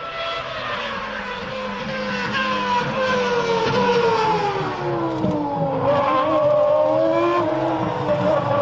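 Go-kart engine running high and buzzy, its pitch falling steadily for about six seconds as it slows, then rising slightly and holding steady near the end.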